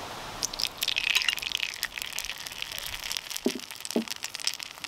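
A drop of takoyaki batter sizzling and crackling in the hot oil of a takoyaki pan, starting about half a second in and strongest soon after. The lively bubbling is the sign that the pan is hot enough to start cooking.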